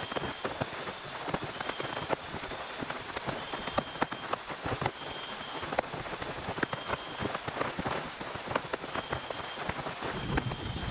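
Heavy rain falling on a tent, a steady wash of dense individual drop hits. A low rumble rises near the end.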